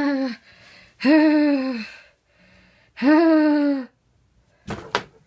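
A person's voice making three long wordless cries, each about a second long, rising a little in pitch at the start and dropping away at the end, with short gaps between. A brief sharp knock or burst of noise follows near the end.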